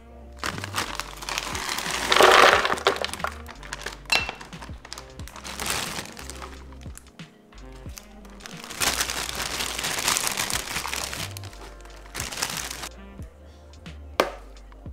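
Background music with a steady bass line, over the crinkling of a plastic bag of frozen berries and the rustle and clatter of frozen berries, then handfuls of spinach, going into a plastic blender jar, with a sharp click near the end.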